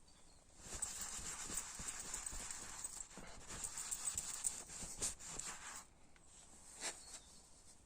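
A cloth rubbing wax polish into the wooden frame of an antique sofa: a scrubbing hiss with a short break about three seconds in. A couple of light knocks come near the end.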